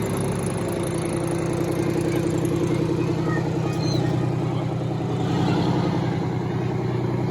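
A vehicle engine idling, a low, even hum that holds steady throughout.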